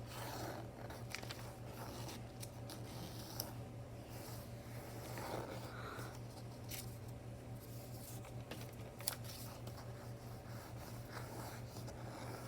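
A square sheet of paper being folded in half and creased by hand: rustling with short, sharp crackles and scrapes as the fold is pressed. A steady low hum runs underneath.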